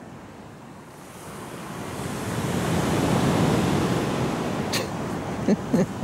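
A sea wave breaking and washing up a pebble beach, swelling to a peak about three seconds in and then easing off, with a few short clicks near the end.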